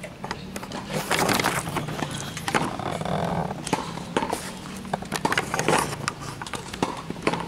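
Irregular clicks, knocks and rustling of the camera being handled up against a chain-link fence, loudest in short bursts about a second in, near the middle and about six seconds in.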